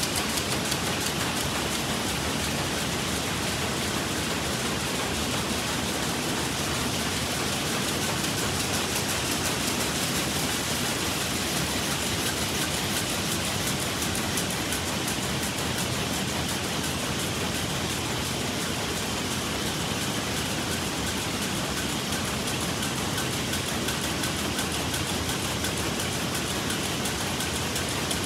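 Several rapier looms with jacquard heads running together at high speed: a loud, steady mechanical clatter of very rapid beats, too fast to count.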